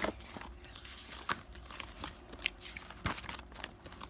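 Paper being handled while making up a journal page: rustling and crinkling, broken by a few sharp clicks and taps.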